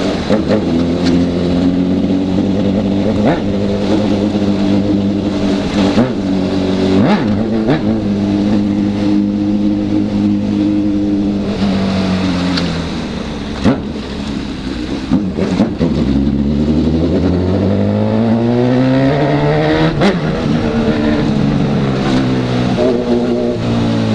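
Honda CB1000's inline-four engine under way, running at a steady pitch, easing off about halfway through, then pulling up smoothly in revs as the bike accelerates, and settling again.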